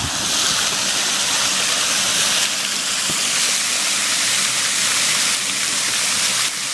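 Fountain jet shooting a wide spray of water into the air, the spray splashing back down onto the river surface in a steady hiss of falling water.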